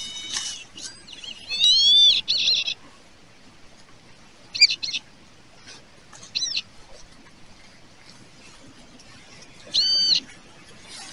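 Metal-detecting pinpointer sounding high electronic tones as it is passed over dug soil, signalling metal: a cluster of tones and warbles at first, two short chirps in the middle, and one steady half-second tone near the end.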